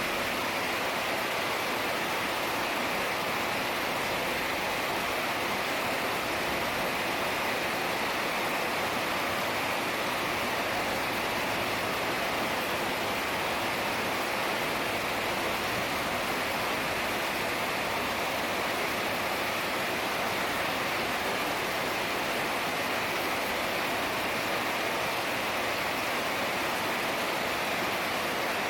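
Heavy rain falling, a steady, even hiss with no thunder or other distinct sounds.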